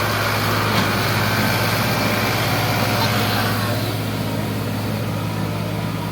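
Sonalika DI 47 RX tractor's diesel engine running steadily, with a broad rushing noise over it that eases about four seconds in.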